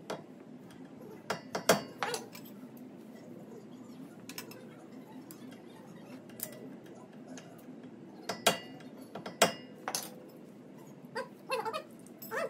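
Hammer striking a chisel against the axle nut at the centre of a Toyota Highlander's front wheel hub, staking the nut into the shaft's groove to lock it. Sharp metallic strikes in two groups of about three, one about a second and a half in and one around eight to ten seconds in.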